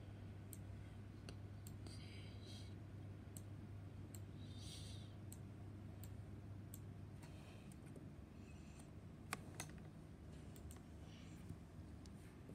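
Faint, irregular clicks from a computer being worked, scattered about a second apart, with a few short soft rustles. A low steady hum runs underneath and weakens about halfway through.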